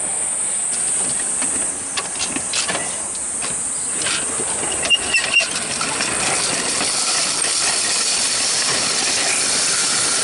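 A person riding down a long park slide on a sliding mat: a steady hissing, rattling rush with scattered clicks, and a few short high squeaks about halfway down.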